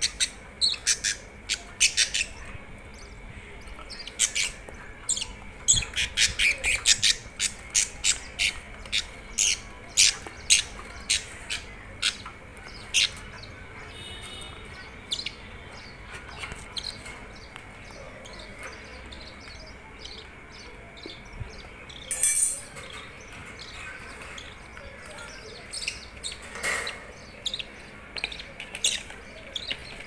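Budgies chirping and squawking in many short, sharp calls that come in quick runs, thickest in the first half and again near the end. A short burst of noise comes about two-thirds of the way through.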